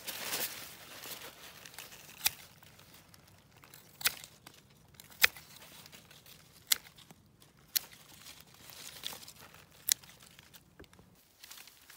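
Hand pruning shears snipping through green willow stems: about six sharp clicks, one every second or two, with rustling of cloth and twigs that is loudest at the start.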